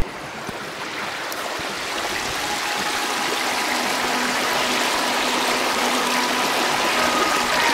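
Mountain creek rushing and splashing over rocks in a small cascade, a steady water noise that grows somewhat louder over the first couple of seconds.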